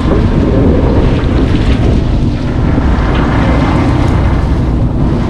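Strong wind buffeting the microphone on an open boat deck: a loud, steady rumble.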